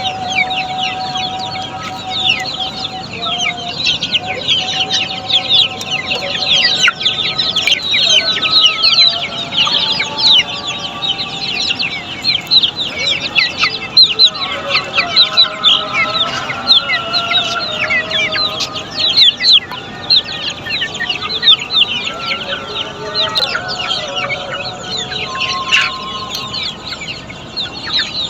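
A large flock of Black Australorp chicks peeping constantly: dense, overlapping, short, high, downward-slurred peeps. Longer, lower calls of grown chickens come and go among them.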